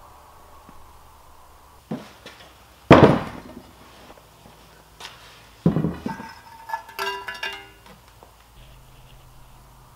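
Heavy, rusty end caps of an old three-phase electric motor being handled and set down on a wooden workbench: a few dull thunks, the loudest about three seconds in, then clinks with a brief metallic ring around seven seconds in.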